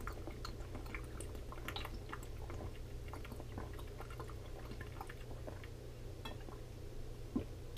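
A person drinking from a small glass bottle in long swigs: faint gulps, swallows and small liquid clicks, over a low steady hum.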